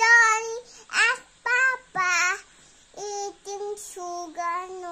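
A small boy singing, a string of short held notes at a fairly high pitch, broken by brief pauses between phrases.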